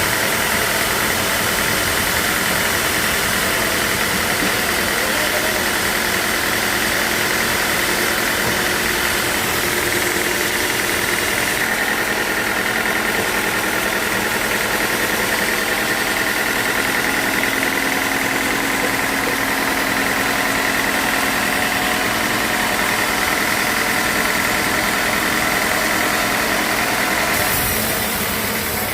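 Sawmill machinery running steadily with a constant whine, its sound shifting about a second before the end.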